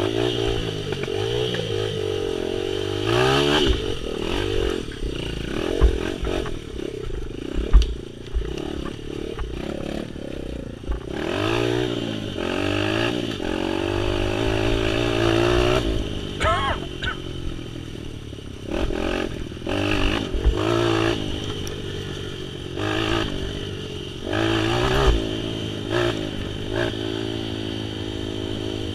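Off-road motorcycle engine revving up and falling back over and over while riding a rough trail, with scattered knocks and clatter over the bumps.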